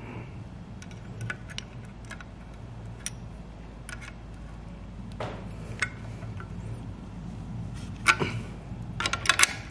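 Scattered small metallic clicks and taps of an open-end wrench on a nut and bolt as a rivnut is tightened by hand in sheet metal, with a denser run of sharper clicks near the end, over a steady low hum. The nut is being turned down to crush the back of the rivnut against the sheet.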